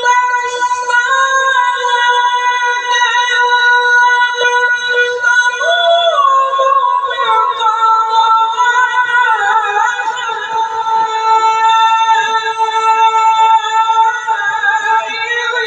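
A Quran reciter's voice holding long, high, melodic notes in tajweed-style chanting. The pitch turns in slow ornaments and steps down in places.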